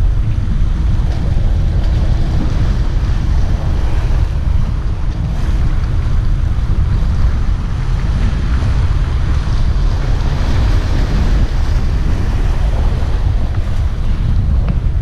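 Strong wind buffeting the microphone in a steady deep rumble, with sea waves washing against the breakwater rocks.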